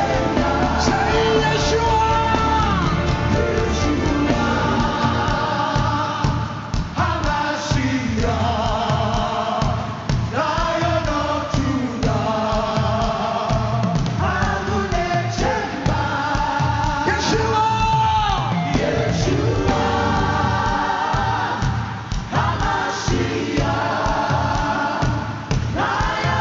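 Live gospel worship music: voices singing a melody with a choir over a full band, with a steady beat.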